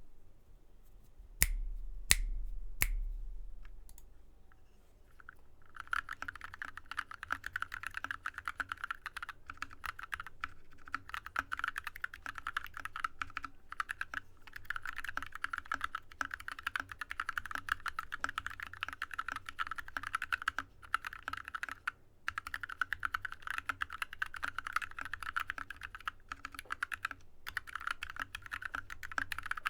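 Typing on a Drop ALT mechanical keyboard with lubed Yok Polar Panda linear switches: a fast, continuous run of keystrokes starting about six seconds in, with a couple of short pauses. Before it, three sharp knocks come about a second apart.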